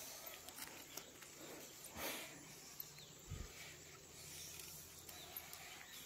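Quiet outdoor ambience, with a faint rustle about two seconds in and a soft low thump a little after three seconds.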